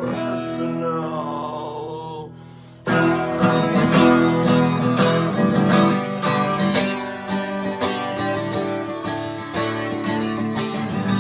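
Guitar playing, with a voice singing one long held word over it. Just under three seconds in the guitar strumming comes in suddenly louder and carries on in a steady strummed rhythm with no singing.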